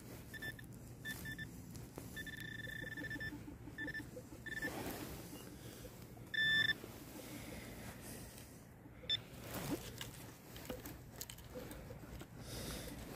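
Metal detector beeping in a steady high tone over a buried piece of metal: several short beeps in the first few seconds, one longer beep, and a loud beep about six and a half seconds in. Faint scrapes and knocks of digging in the soil come between the beeps.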